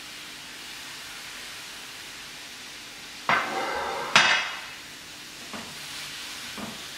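Spinach leaves cooking in a hot pan on a gas hob: a steady faint hiss, broken about three and four seconds in by two sudden loud bursts, then a wooden spatula stirring the leaves with a few light knocks.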